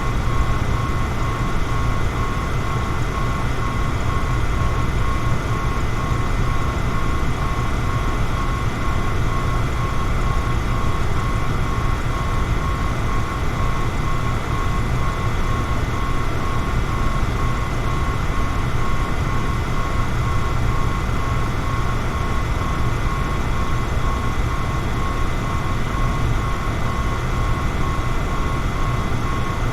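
Electric fan running steadily: an even rushing noise, heaviest in the low end, with a couple of faint steady whining tones from the motor above it.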